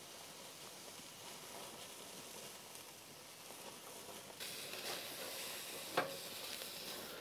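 Beef roast sizzling on an infrared sear burner of a gas grill: a faint, steady hiss that grows louder about four seconds in. A single sharp click comes about six seconds in.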